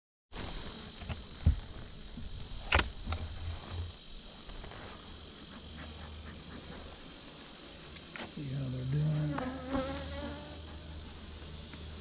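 Steady insect buzzing, with two sharp wooden knocks in the first three seconds as the hive's outer cover is handled, and a short rising hum about eight seconds in.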